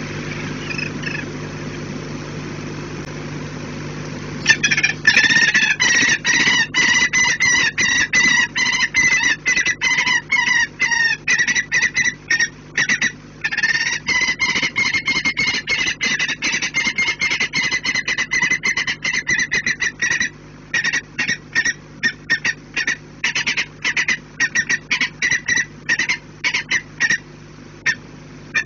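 Peregrine falcon calling loudly: from about four seconds in, a long fast series of harsh repeated calls, which slow to separate calls for the last several seconds.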